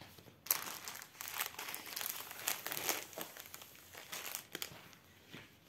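Clear plastic packaging crinkling and rustling as it is handled: the cellophane-wrapped drill bags and the protective film over a diamond-painting canvas. The crinkling starts about half a second in, goes on in quick irregular crackles, and dies down near the end.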